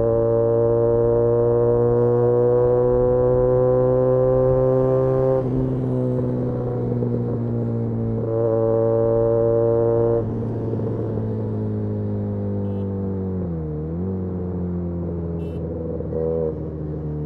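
Benelli 302S parallel-twin engine through an Austin Racing titanium exhaust, heard on the move. It pulls steadily, its pitch slowly rising for about five seconds, then drops as the throttle is rolled off. It picks up again briefly, then runs at a lower pitch, with a short dip and recovery in pitch a little past halfway.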